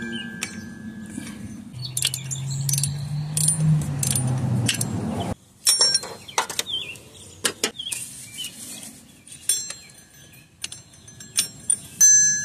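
Metal hand tools clinking and ringing as a ratchet and socket work loose a power steering pump's upper 14 mm mounting bolt, with many short, sharp metallic clicks. A low hum runs for about three seconds near the start.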